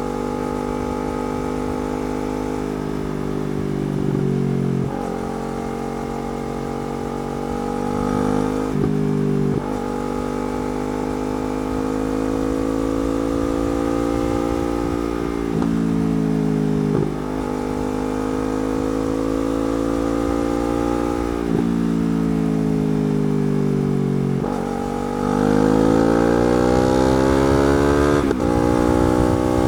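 Yamaha R3's parallel-twin engine through a slip-on exhaust, running under riding load. The pitch glides with the throttle and jumps abruptly at about seven gear changes, and near the end it revs up steadily before a shift.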